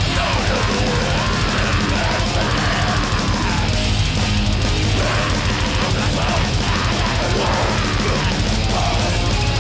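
Live black metal band playing at full volume: fast, dense drumming under heavily distorted guitars and bass.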